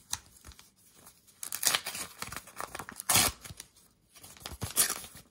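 Paper mailing envelope being torn open by hand, in several rough ripping bursts with paper rustling between them.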